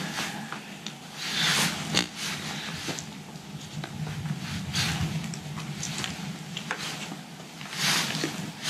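Handling noise of a nylon dry pack's hip-belt webbing being fastened with zip ties and pliers: irregular rustling scrapes, with a sharp click about two seconds in.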